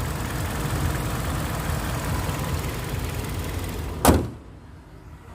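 A 2011 Hyundai Sonata's engine idling smoothly, then a single heavy slam about four seconds in, after which the engine sound is much quieter and more muffled.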